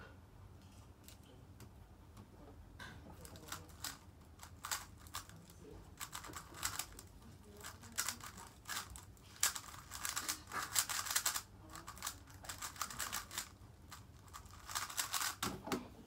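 A 3x3 speed cube being turned fast by hand: runs of quick plastic clicks and clatter as the layers snap round, scattered at first and then dense for several seconds, with another quick flurry near the end.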